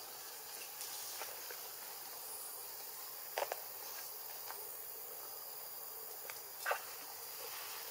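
Forest background of a steady, high-pitched insect hiss, broken by two short sharp knocks, one about three and a half seconds in and a louder one near the end.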